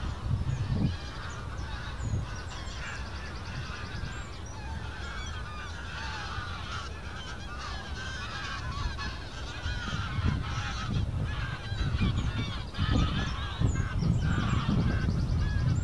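A flock of greylag geese honking over and over as it flies past, the calls getting louder in the second half. A low wind rumble on the microphone runs underneath.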